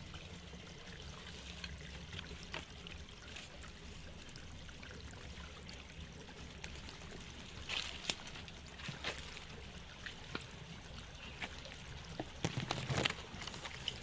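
Shallow forest stream trickling and flowing over its bed, with a steady low rumble underneath and a few short sharp sounds, the loudest cluster about a second before the end.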